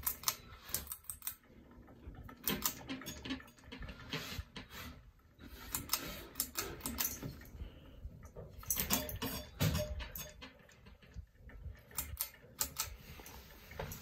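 Irregular clicking and rattling as a hand handles the light globe and metal bead pull chain of a running Hampton Bay Littleton ceiling fan that has a broken blade, with the chain jangling.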